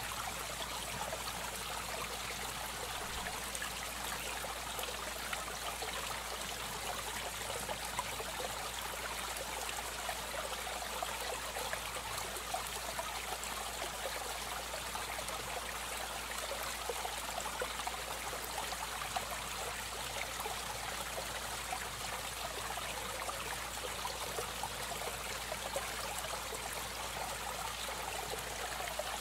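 Aquarium water trickling and splashing steadily, with a constant low hum underneath.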